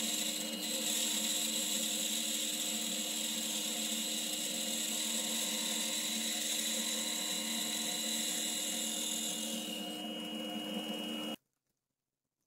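A homemade band saw with a plywood frame and MDF wheels, running and cutting through a tall block of wood: a steady motor hum with the hiss of the blade in the wood. It cuts off suddenly about eleven seconds in.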